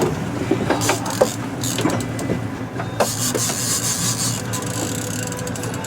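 Boat motor running steadily at low speed, with scattered clicks and knocks over it.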